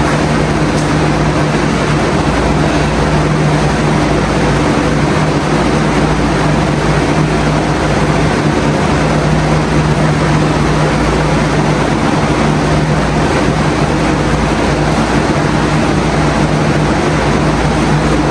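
Loud steady machine hum with a constant hiss, holding one low pitch without change.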